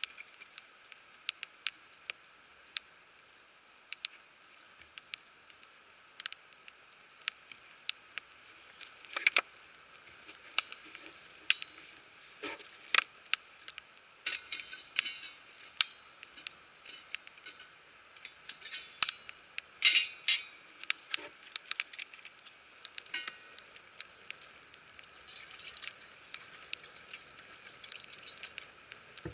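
Wood fire crackling in a fire pit, with irregular sharp pops, a few louder ones around the middle, over a faint hiss.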